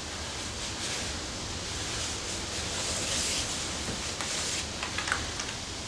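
Paper towel rubbing along a rubber tire bead, wiping on dishwashing liquid as a lubricant for mounting the tire: a soft, steady rubbing.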